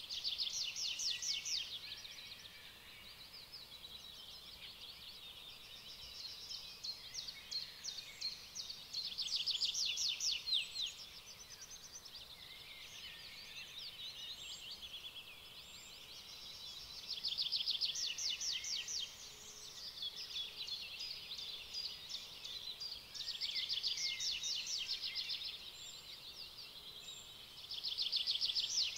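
Songbird singing: bursts of rapid trilled notes, each about one to two seconds long, repeating every several seconds, with a few faint high chirps in between.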